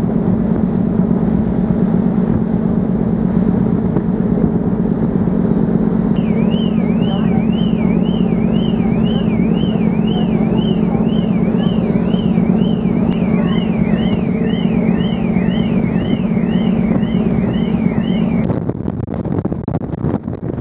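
Steady low drone of a ferry's engines, with a warbling electronic alarm sweeping up and down about twice a second from about six seconds in. A second warble joins partway through, and both cut off together with the drone near the end, leaving wind noise on the microphone.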